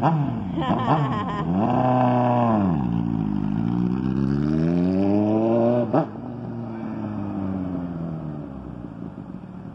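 2002 Kawasaki ZX-9R's carbureted inline-four through a D&D aftermarket exhaust, revving as the bike pulls away. The pitch rises, holds, falls, then climbs again. After a sharp break about six seconds in it settles to a lower note that fades as the bike rides off.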